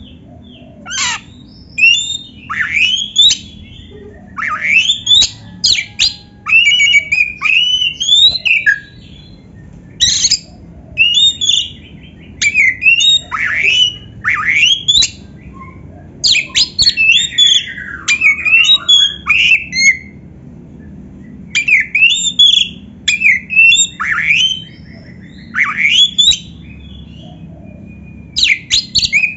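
Oriental magpie-robin (kacer) singing: loud phrases of quick, sweeping whistled and chattering notes, broken by short pauses, with a faint steady background hum.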